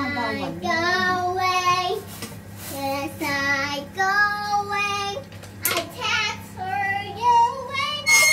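A solo voice singing a slow melody in phrases, holding long notes with a wavering vibrato, with no instruments behind it.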